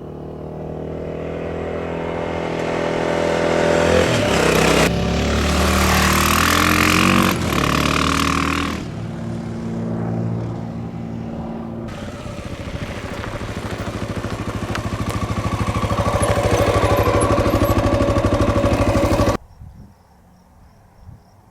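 Honda XR650L's single-cylinder four-stroke engine pulling as the bike accelerates, its pitch rising and then stepping down at gear changes. About twelve seconds in it climbs steadily again, then cuts off suddenly near the end.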